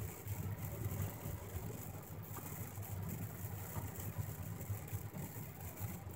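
Car cabin noise while driving on a wet road: a steady low engine and tyre rumble with a hiss above it.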